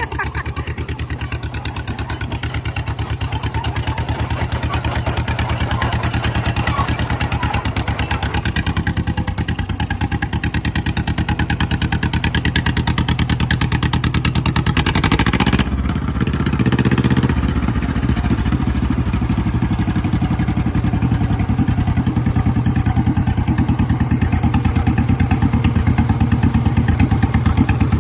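Engine of a 1954 John Deere 40 crawler dozer running steadily with an even rapid pulse. About halfway through comes a brief clattering burst and a change in the engine note, and it gets slightly louder toward the end.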